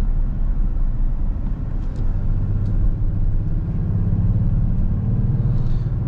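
Road and engine noise inside the cabin of a moving 2020 Kia Stinger GT: a steady low rumble, with the engine hum growing stronger about halfway through.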